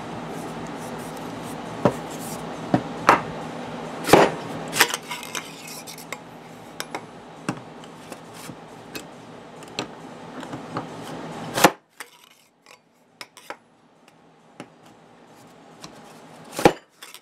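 Irregular metallic knocks and clinks as a socket on an extension bar is driven down through a dented metal fuel-sender tube to push the dent back out, with a louder knock about four seconds in and another near the end.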